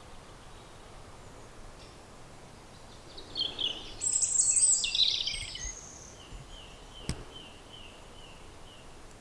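A songbird singing a short burst of quick, high trilled phrases about three seconds in, then a run of short, evenly repeated notes, over a steady outdoor background hiss. A single sharp click about seven seconds in.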